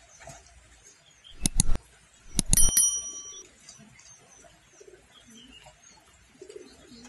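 A few sharp knocks about a second and a half in, then a clink with a short metallic ring a second later. The rest is faint background.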